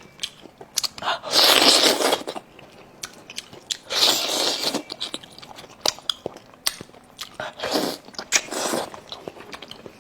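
Close-miked eating of sauce-braised monkfish: a person chewing with many sharp wet clicks and smacks, and several louder noisy bursts about a second long, near the start, in the middle and toward the end.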